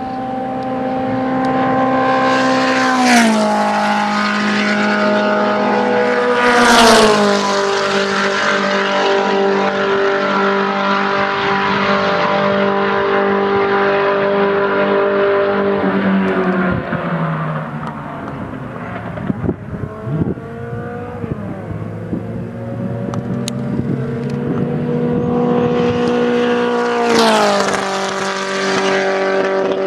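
Midget race car engines running at racing speed as several cars pass close by in turn. Each engine's pitch drops steeply as it goes past, about three seconds in, about seven seconds in and again near the end, with a busier mix of more distant engines in between.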